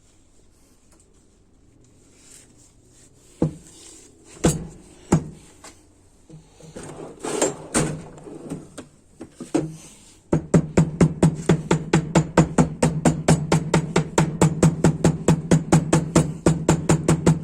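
A few separate metal knocks, then from about ten seconds in a fast, even run of light taps, about five or six a second, as the input shaft is tapped down into the transmission's input clutch drum to line up its holes.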